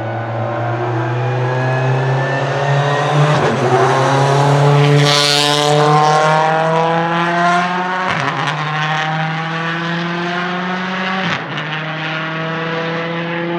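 Turbocharged 1.6-litre four-cylinder engine of a Volvo S60 Polestar TC1 touring car accelerating hard, its pitch climbing through the gears with quick upshifts about three and a half, eight and eleven seconds in. It grows louder to a peak around five seconds in, then slowly fades as the car pulls away.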